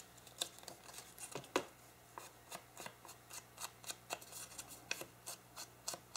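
Distress ink pad being dabbed and rubbed along the edges of a piece of paper: faint, light taps and scrapes, two or three a second, at an uneven pace.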